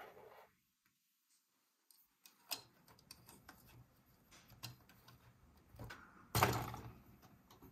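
Small LEGO plastic pieces clicking and tapping as a minifigure is fitted into a Ferris wheel gondola, with scattered light clicks and one louder burst of clicks near the end.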